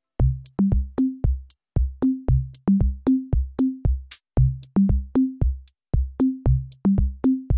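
Electronic background music: a drum-machine beat with a bouncy bass line, starting a moment in.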